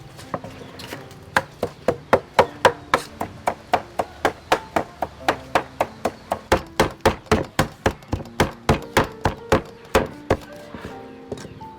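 Knife chopping on a cutting board in quick, even strokes of about four to five a second, pausing briefly near the start and again near the end. Faint background music with held notes plays underneath.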